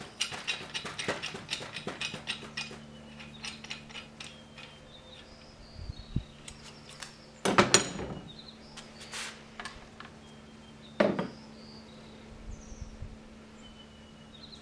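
Cheap screw-type valve spring compressor being loosened and taken off an Acura Integra cylinder head to free a valve spring: rapid metallic clicking and rattling of the tool for the first few seconds, then louder metal clanks about eight and eleven seconds in as the tool and spring parts come off.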